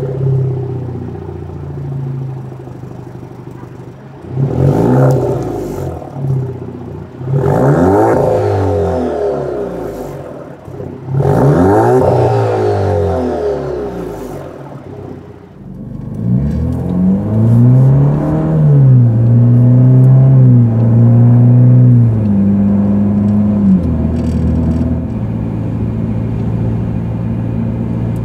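Alfa Romeo Giulia's 2.0-litre turbocharged four-cylinder through an aFe MACH Force-Xp stainless axle-back exhaust. It idles, is revved sharply three times, then accelerates through several upshifts heard from inside the cabin, each gear change dropping the pitch, before settling to a steady cruise.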